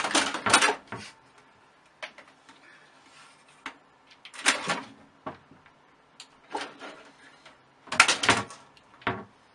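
A cat's claws scrabbling and scraping against the hard case of a computer tower in short bursts, with light knocks, the loudest burst near the end.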